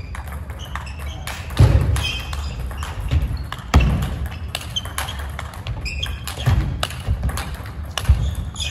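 Table tennis rally: the plastic ball clicking off the rackets and the table in quick succession, with a few heavy thuds from the players' footwork on the wooden floor.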